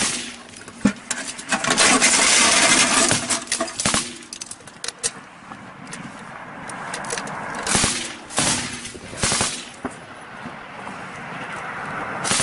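Machine-gun fire: a dense stretch of rapid fire about two seconds in, followed by scattered shots and short bursts.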